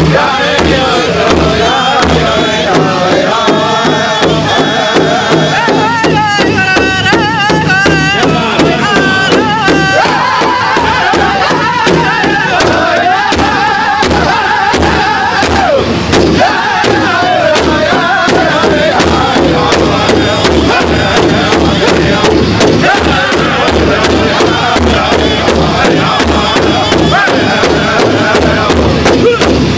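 Powwow drum group: several men strike one large hide-headed drum in unison with drumsticks, keeping a steady fast beat, while singing loudly together. A high lead voice stands out between about six and ten seconds in.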